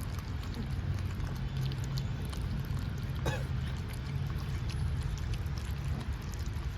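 Puppies eating, small clicks of chewing and lapping over a steady low hum, with one short whine falling in pitch about three seconds in.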